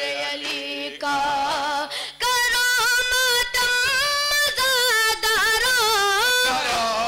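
A boy's high voice chanting an Urdu nawha (Shia lament) into a microphone, holding long, wavering notes between short breaths; quieter for the first two seconds, then loud.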